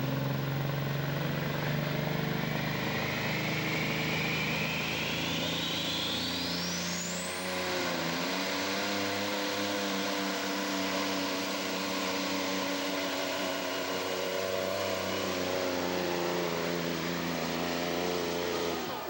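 Cabover semi truck's diesel engine running at full throttle under load while pulling a sled, with a turbocharger whine that climbs steeply over the first seven seconds and then holds as a high steady whistle. The engine note dips briefly about eight seconds in and runs on under load.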